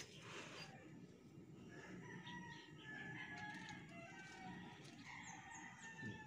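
Faint rooster crowing, several drawn-out calls, with a few short high bird chirps near the end.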